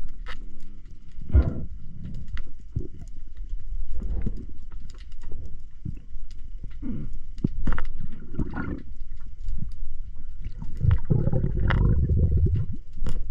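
A spearfisher breathing hard through a snorkel in irregular heavy breaths, with water sloshing and scattered knocks and clicks.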